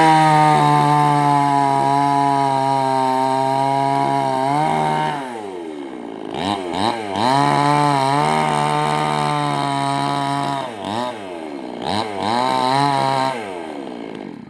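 Two-stroke chainsaw running at high revs, dropping off and revving back up twice, about five and eleven seconds in, then cutting off suddenly at the end.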